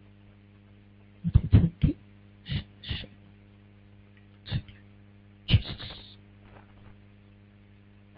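Steady electrical mains hum from the microphone's sound system, broken by a handful of short, loud bursts of sound at the microphone.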